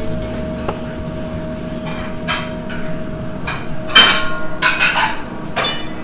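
Metal pans and utensils clattering in a commercial kitchen: several separate ringing knocks, the loudest about four seconds in, over a steady hum.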